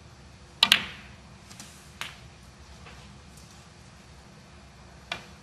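Snooker cue and balls clicking on the table as a shot is played: one sharp click about half a second in, then fainter clicks about two seconds in and near the end.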